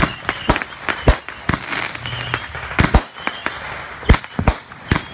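Fireworks going off: an irregular run of sharp bangs and crackling pops, the loudest about a second in, near three seconds and just after four seconds.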